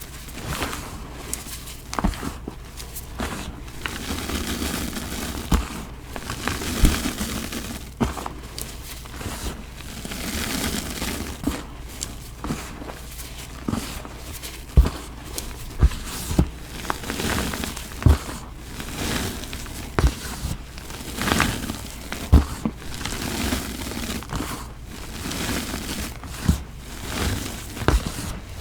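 Reformed blocks of Bon Ami cleaning powder being crushed and crumbled by hand: soft, dry, powdery crunching that swells and fades, with irregular sharp cracks as pieces break.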